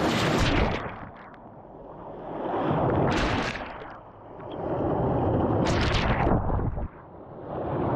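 Small waves breaking and washing up a shelly beach close to the microphone. The surge rises and falls every two to three seconds, with a hissing splash at each break.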